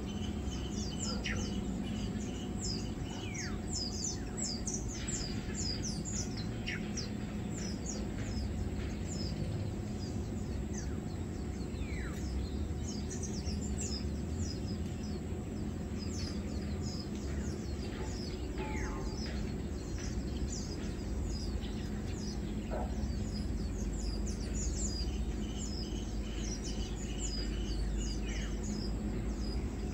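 Many small birds chirping, with short high calls all through and a few downward-sliding calls now and then, over a steady low background rumble.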